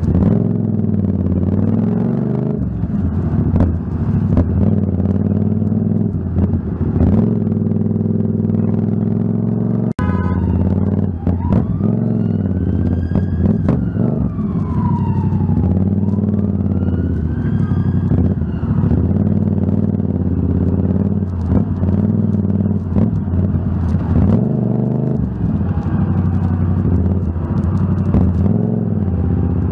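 Yamaha MT-07 parallel-twin engine running at low revs in traffic, with wind buffeting the helmet-mounted microphone. Near the middle a police siren wails up and down for several seconds.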